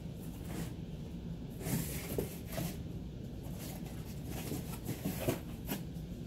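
Steady low hum with several short scratchy rustles over it, the loudest about two seconds in and again about five seconds in.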